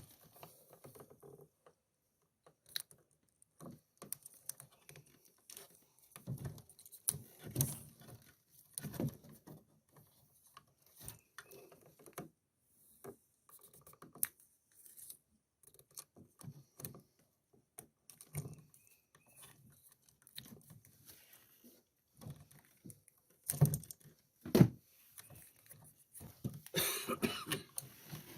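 Scattered small clicks, taps and rustles of hands working on an electrical outlet, wrapping its wired terminals with electrical tape. Two louder knocks come a little over twenty seconds in, and a longer stretch of rustling near the end.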